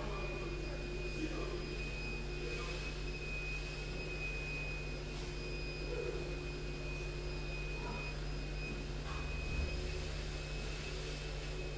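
Steady low hum with a thin, high-pitched whine held over it, unchanging throughout, with a small bump about nine and a half seconds in.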